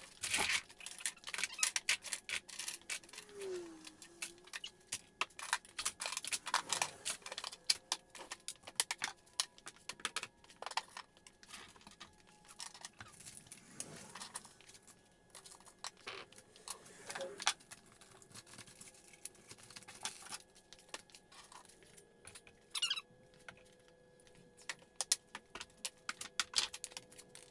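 Tools and metal hardware clinking and clattering as they are handled and set down on a rolling tool cart and workbench: many short, light clicks and knocks in irregular runs.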